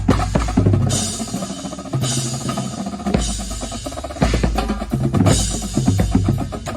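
Drum corps percussion section playing together: rapid snare and drum strokes over deep bass drums, with cymbal crashes about a second in, at two and three seconds, and again past five seconds.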